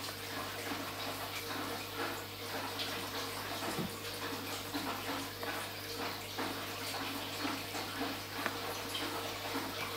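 Aquarium filter running: a steady trickle of moving water over a constant low hum, with a few faint ticks.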